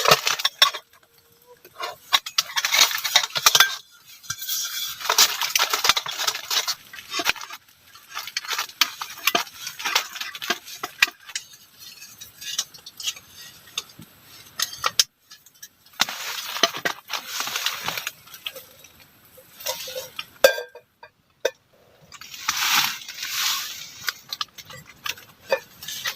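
Metal cookware clinking and rattling as it is handled to make tea, in spells of clatter with short pauses between.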